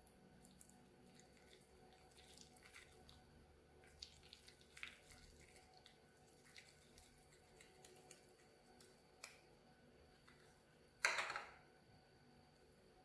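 Faint, sticky clicks and small wet crackles of a wooden stick stirring slime in a small plastic cup, with one louder short squelch near the end as the slime lump comes away on the stick.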